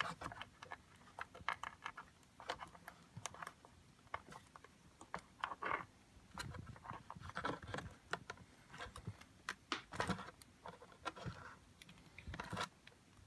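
Needle-nose pliers clamping a butt splice connector onto a wire by hand: scattered faint clicks and taps of the metal pliers and wire, with a few short rustling scrapes.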